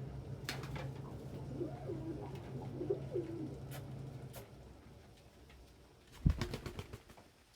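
Domestic pigeons cooing, a few wavering coos in the first half over a steady low hum that fades out around the middle. Near the end a sharp thump and a quick run of clicks.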